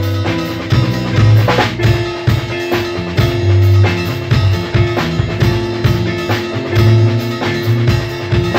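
Live rock band jam: drum kit with kick drum and cymbals keeping a steady beat under an electric guitar and bass guitar. A cymbal crash just under two seconds in, after which a guitar note rings on over the groove.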